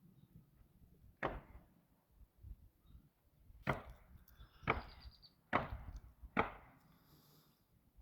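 Hammer blows on the wooden framing of a house addition: five separate strikes, spaced irregularly about a second apart.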